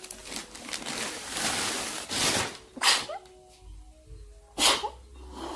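A woman sneezing: a noisy build-up of breath, then sharp, loud sneezes, the last about a second before the end.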